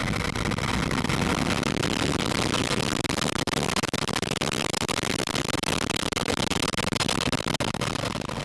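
Vega-C rocket lifting off, its P120C solid-fuel first-stage motor firing: a loud, steady rushing noise full of dense crackle, fading near the end.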